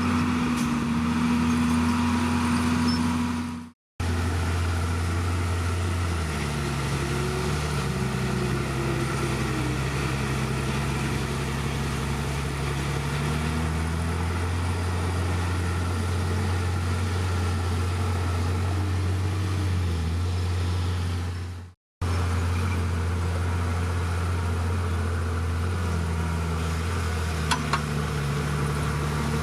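Diesel engine of a Komatsu D51PX bulldozer running steadily, its pitch rising and falling several times as the revs change. The sound drops out abruptly twice, for a moment each time.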